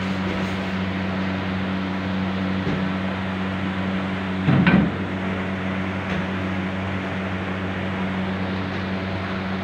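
Steady electric hum of kitchen machinery over a constant hiss, with one short knock about four and a half seconds in.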